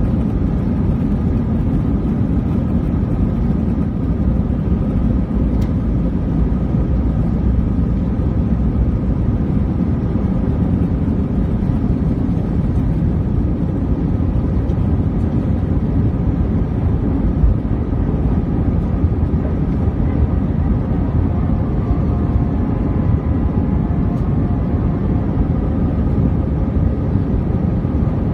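Steady low rumble inside the cabin of an Airbus A321-200 with its jet engines running, a few faint steady tones sounding above it.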